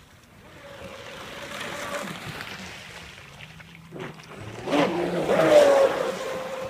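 Pro Boat Blackjack 24 RC catamaran's brushless electric motor whining at speed. It grows loudest as the boat passes close about five seconds in, its pitch falling as it goes by, over the hiss of its spray and wake.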